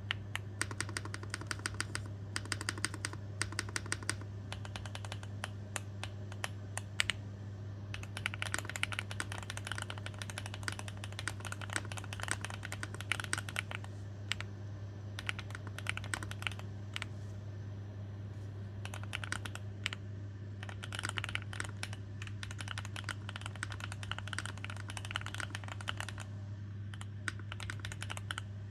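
Typing on a Rainy75 mechanical keyboard with Gateron Smoothie linear switches: rapid runs of keystrokes in bursts, easing off briefly a few times. A steady low hum sits underneath.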